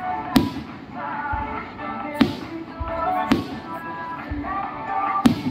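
Aerial firework shells bursting overhead: four sharp bangs spaced one to two seconds apart, over music playing throughout.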